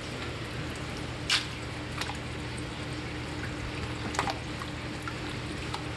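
Water from a turtle-tank filter outlet pouring and splashing into the tank: a steady watery rush over a faint hum, with a few short sharp sounds.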